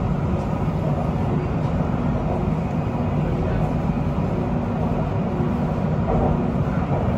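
Interior running noise of a Siemens Inspiro metro train travelling at speed: a steady low rumble of wheels on rail with a steady low hum.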